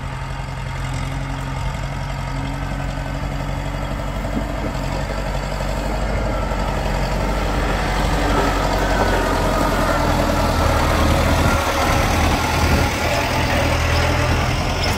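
Kubota M7040 tractor's diesel engine working steadily as it pushes soil with a front dozer blade, growing louder as it comes close.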